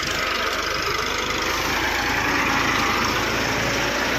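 Farmtrac 60 tractor's diesel engine running steadily.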